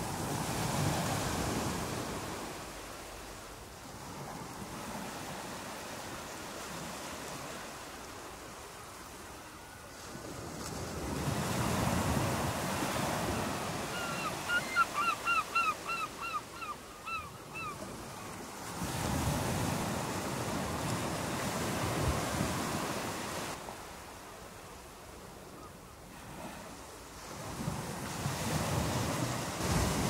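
Waves breaking and washing up the shore, swelling and fading in slow surges every several seconds. About halfway through, a gull calls in a quick run of about ten short cries.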